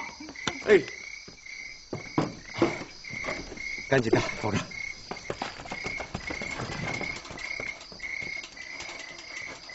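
Crickets chirping steadily, about two chirps a second. Brief voice sounds come and go in the first half.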